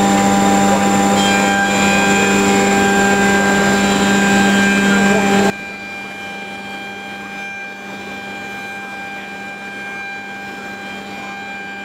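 Weinig Powermat 400 moulder running with its dust collection: a loud, steady machine hum with a strong low tone and several higher steady tones. About five and a half seconds in it drops abruptly to a quieter, thinner hum.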